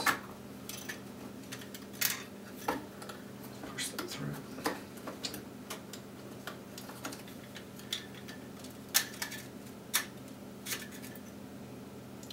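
Plastic clicks and taps from a Canon EF 50mm f/1.8 II lens being worked apart by hand. The clicks come irregularly, with the loudest about two seconds in and around nine seconds in.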